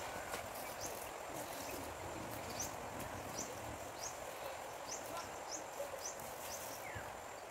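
A small bird chirping over and over, short high rising chirps about every half second, over a steady outdoor hiss with a thin high whine held throughout.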